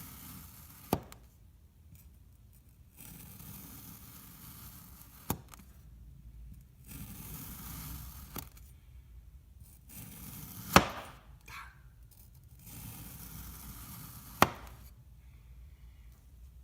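A knife slicing through kinetic sand: soft gritty hissing strokes with short pauses between them, and four sharp clicks spread through, the loudest about two-thirds of the way in.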